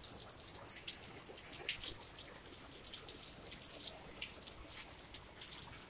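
Rain falling, lighter after a heavy downpour: a steady soft hiss with many small, irregular drops and drips hitting wet ground and pavement.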